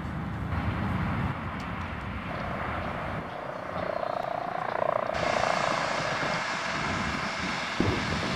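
Aircraft engine droning in the distance, its pitch rising slightly in the middle, over a steady outdoor hiss that shifts abruptly twice.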